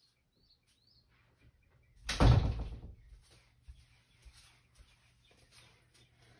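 A door shutting with one heavy thump about two seconds in, fading over about a second, followed by faint rustling.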